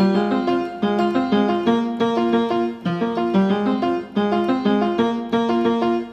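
Background music: a keyboard melody of quick, evenly paced notes over a steady accompaniment.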